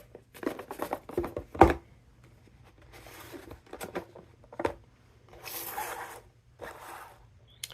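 Mailed package being torn open by hand: a run of short ripping and scraping sounds, with a sharper, louder one about a second and a half in and a few longer rips near the end.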